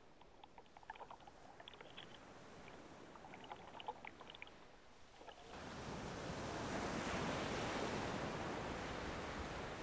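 Faint fizzing and crackling of air bubbles in wave-churned seawater, heard underwater. About five and a half seconds in it gives way to the louder, steady rush of small sea waves breaking around a wading angler.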